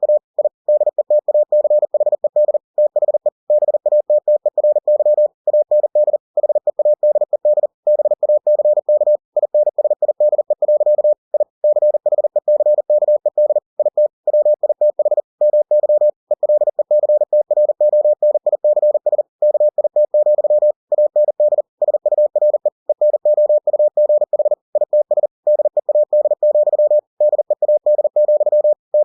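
Computer-generated Morse code (CW) at 40 words per minute: a single pure tone keyed on and off in rapid dots and dashes, with short pauses between letters and words, spelling out running text.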